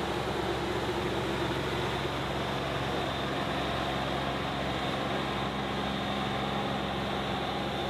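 New Holland Boomer 55 compact tractor's diesel engine running steadily under load as its front loader bucket pushes into a dirt pile.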